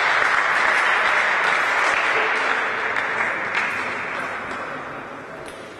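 Spectators applauding after a point in a table tennis match, steady at first and then dying away over the last two seconds or so.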